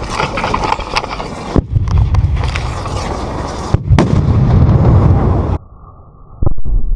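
Pyrotechnic fuse burning along the ground with a dense hissing, crackling rush and several sharp pops and bangs. The sound cuts off abruptly about five and a half seconds in, leaving a dull, muffled rumble with one more crack.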